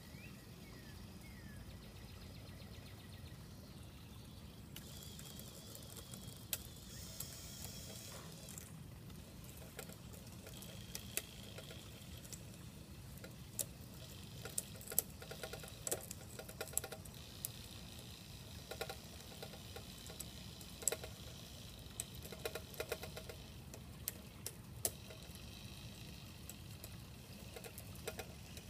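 Radio-controlled model crawler crane working: its small electric motors whine faintly as it swings and works the clamshell bucket, with many light clicks and ticks from its gearing and rigging that come thickest in the second half. A steady low hum lies underneath.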